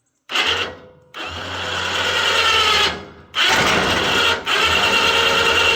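Electric winch on a sawmill's log turner running under remote control with a motor and gear whine, started and stopped in several runs with brief pauses between them.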